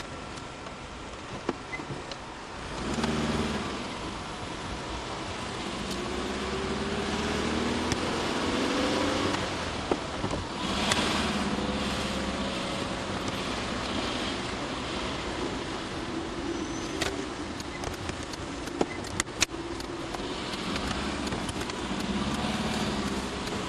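Car engine and road noise heard from inside the cabin while driving slowly, the engine note rising several times as the car accelerates. A few sharp clicks sound about two-thirds of the way through.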